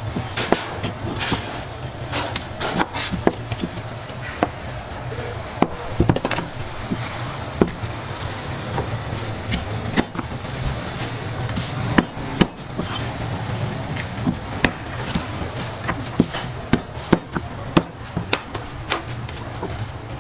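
Large kitchen knife chopping and slicing braised pig's trotters on a plastic cutting board: irregular sharp knocks of the blade hitting the board, sometimes several in quick succession, over a steady low hum.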